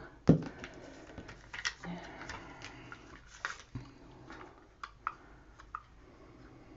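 Scattered light clicks and taps of small craft items being handled on a tabletop, with one sharp knock about a third of a second in.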